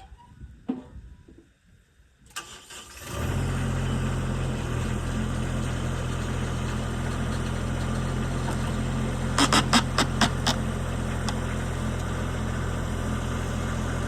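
The 23-horsepower diesel engine of a mini skid steer cranks and starts about two seconds in, then runs steadily. About halfway through, a quick run of five or six sharp knocks sounds over the engine.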